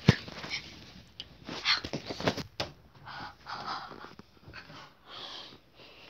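Sharp knock from handling the phone at the start, then bursts of breathing and sniffing close to the microphone, with a few small handling clicks.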